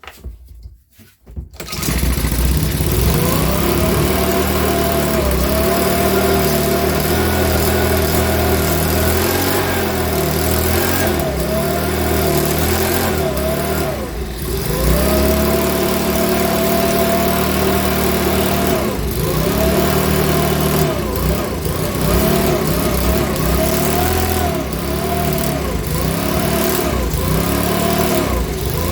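Makita BHX2500 leaf blower's small four-stroke engine starting about two seconds in and running, its speed sagging and picking back up, once mid-way and then over and over in the second half. The owner reckons the engine is going to need a new carburettor.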